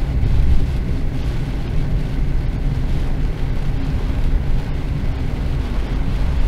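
A car driving on a wet highway in heavy rain, heard from inside the cabin: a steady low road and engine rumble with the hiss of rain and tyre spray.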